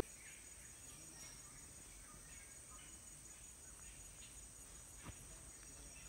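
Faint forest ambience: a steady high-pitched insect drone with a few faint, distant bird calls and a single small click about five seconds in.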